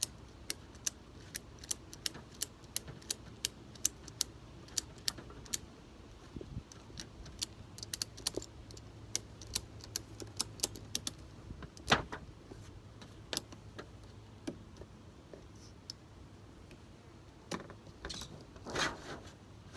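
Ratchet strap being tightened: the ratchet clicks in a steady run of sharp clicks, about two a second, then a few louder single clicks further on.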